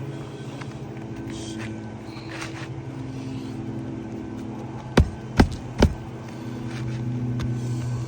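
Three sharp hammer knocks on the roof, about half a second apart, over a steady low mechanical drone.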